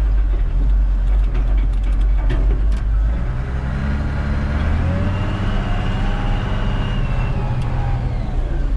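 Wheel loader's diesel engine running, heard from inside its cab. About three seconds in the engine note rises as the loader backs away and turns, and a high whine joins for a couple of seconds; a few light clicks come early on.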